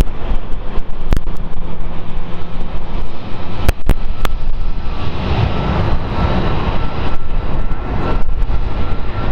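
Boeing 777 jet engines rumbling as the airliner rolls out along the runway after landing. The noise swells about halfway through, a thin steady whine comes in, and a few sharp clicks sound in the first half.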